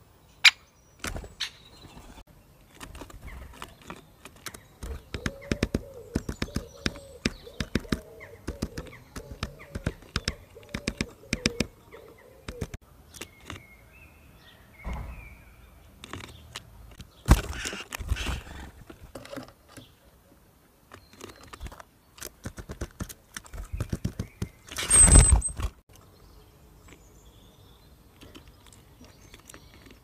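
Birds pecking at seed on a feeder, irregular sharp taps on wood and plastic. A steady run of quick pecks comes from about five to twelve seconds in. Two louder bumps come, one near seventeen seconds and the loudest near twenty-five seconds, with a few faint chirps.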